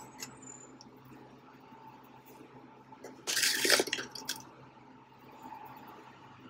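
Plastic measuring spoon scooping powdered chicken bouillon from its jar, with a short scrape and clink about three seconds in over a faint steady hum.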